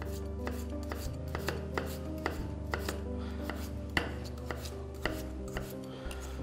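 Chef's knife slicing raw potatoes thinly on a plastic cutting board: a steady run of sharp chopping clicks, about two a second.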